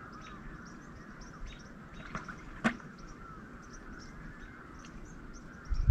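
Evening outdoor ambience with many short, high bird chirps scattered throughout. Two sharp clicks come a little after two seconds in, and a low thump comes at the very end.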